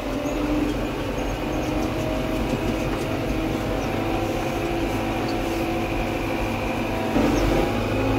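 Tractor's diesel engine running steadily, heard from inside the closed cab while driving along a stony dirt track, with a brief louder patch about seven seconds in.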